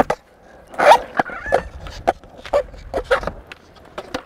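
Skateboard tail snapping on concrete as an ollie is popped, then the board landing with a loud clack a little under a second later. Urethane wheels roll on the concrete with a low rumble and further clacks of the board.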